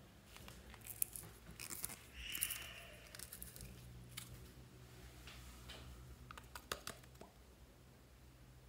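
Faint handling of a glass nail polish bottle: scattered clicks and taps, a short scraping rub a little over two seconds in, and a cluster of clicks later as the cap is twisted off. A low steady hum sits underneath.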